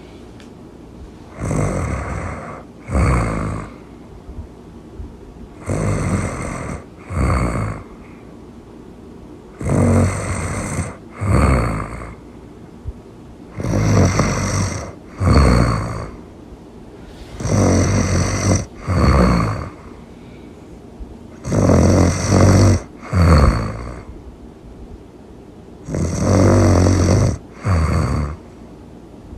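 Loud snoring in a steady rhythm: about every four seconds a longer snore is followed at once by a shorter one, seven times over.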